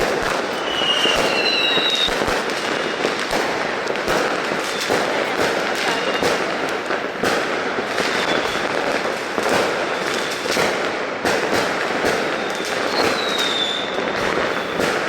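Fireworks going off without a break in a dense, continuous crackle of many sharp bangs. A short high whistle rises above them about a second in and again near the end.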